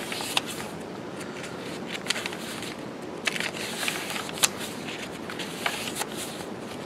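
Paper pages of a handmade junk journal being turned by hand, some of them coffee-stained. The paper rustles throughout, with several sharp crackles as each page flips over.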